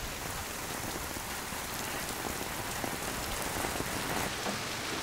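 Steady rain falling, with faint scattered drops ticking close by.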